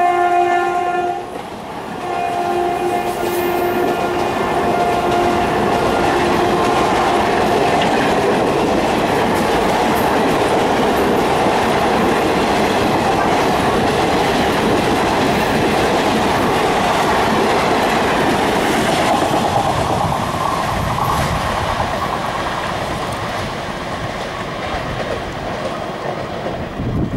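An express train's passenger coaches rolling past on the rails behind a WAP-4 electric locomotive, whose horn sounds at the start, stops about a second in, and sounds again from about two to six seconds in. The rolling noise eases off near the end as the last coaches pass.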